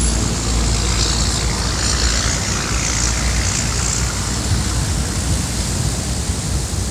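Steady low rumble of a car heard from inside its cabin, with traffic noise and a hiss over it.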